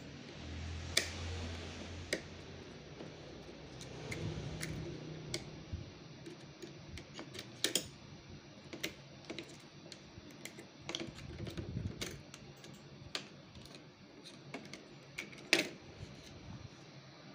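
Irregular clicks and taps of a metal pry tool against the plastic print head carriage and circuit board of an inkjet printer as the board is levered loose, with the sharpest clicks about a second in, midway and near the end.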